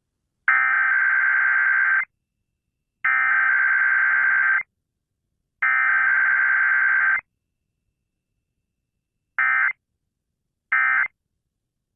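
Emergency Alert System SAME header: three bursts of digital data tones, each about a second and a half long, with a second of silence between them. After a pause come two short bursts of the same tones near the end, the end-of-message signal.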